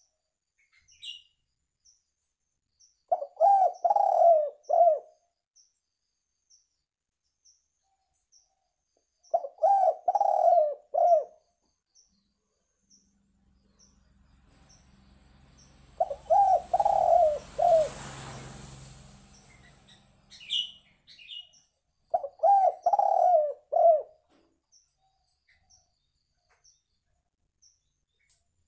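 Spotted dove (tekukur) cooing: four phrases of three or four low coo notes, one about every six seconds. A rushing noise swells and fades around the third phrase, and a few faint high chirps come from another bird.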